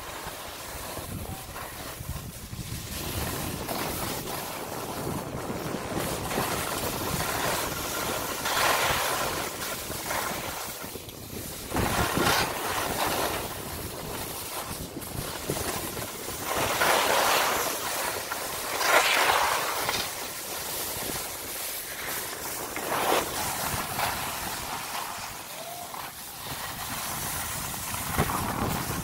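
Skis sliding over packed, groomed snow, with louder hissing scrapes at intervals as the skis turn, and wind rushing over the microphone.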